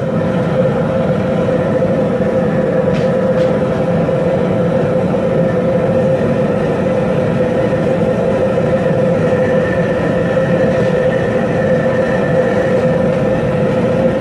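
Propane jet burner running at full flame under a large pot of seasoned water at a rolling boil: a loud, steady rush of noise with one constant tone running through it.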